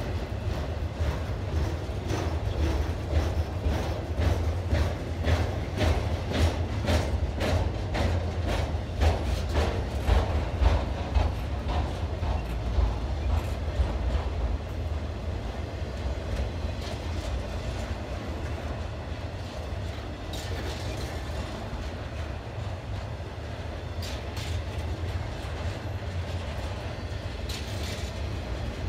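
Intermodal freight train's cars rolling past: a steady low rumble of steel wheels on rail with rapid rhythmic clickety-clack from the wheels crossing rail joints. The clicking is dense and loudest through the first half, then thins to occasional clicks as the level drops.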